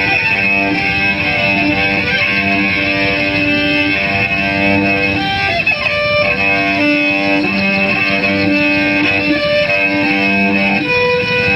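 Amplified cello bowed in a free, noisy improvisation: short bowed low notes repeat again and again under a steady, high ringing tone from the instrument's amplified feedback.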